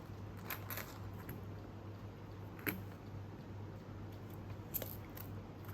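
A few sharp, light clicks spread over several seconds: plastic Easter eggs being handled and pulled open.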